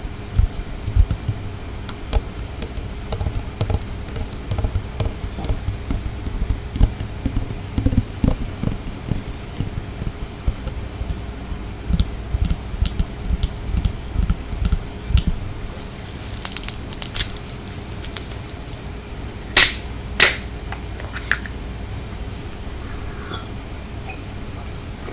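Close-miked chewing of sautéed shrimp: soft, irregular low thumps and small wet clicks for most of the time. Two loud, sharp clicks about half a second apart come about twenty seconds in, followed by quieter chewing.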